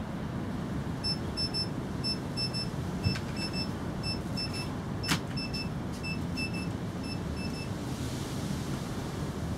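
Electronic beeping: short high beeps in quick groups of two or three, repeating for about six seconds over a steady low background rumble. Two sharp clicks stand out partway through.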